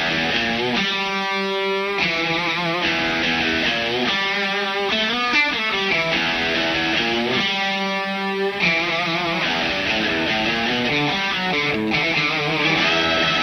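Aria Pro II 615-GH Telecaster-style electric guitar played: ringing chords and single-note lines, each held for a second or two, with some notes bent or wavering in pitch.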